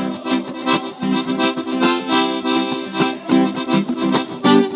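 Live sertanejo band playing an instrumental passage, an accordion carrying the melody over strummed and plucked guitar.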